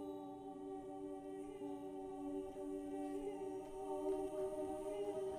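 Wordless choir-like voices holding low notes steadily, growing slightly louder.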